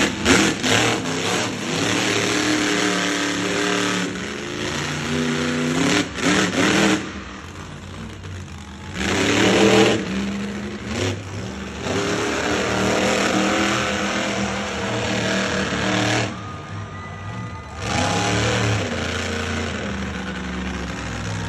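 Monster truck engine revving hard in bursts, its pitch rising and falling as the throttle is worked. The throttle drops off twice, about seven and sixteen seconds in, before it picks up again.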